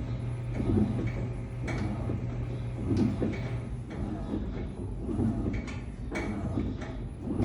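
Electrolux LTM16 top-loading washing machine agitating a wash load: a steady motor hum with a swish of water and clothes about once a second as the agitator swings back and forth.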